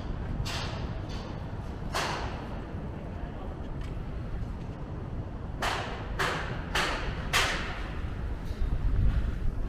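Footsteps on a paved walkway: two single steps early, then four quick, evenly spaced steps past the middle, over a steady low rumble of city traffic.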